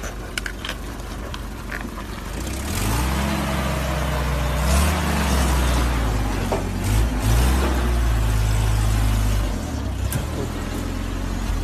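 Off-road 4x4 engine revving hard, its pitch rising and falling, over a broad rushing noise; the revving drops away near the end.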